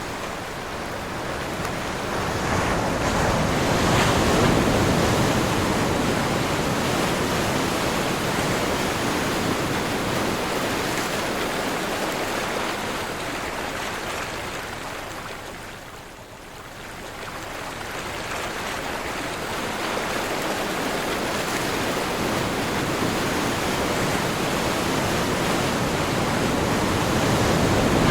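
Sea waves breaking and washing in, with wind blowing on the microphone. The surf swells loudest a few seconds in, eases to a lull about halfway through, then builds again.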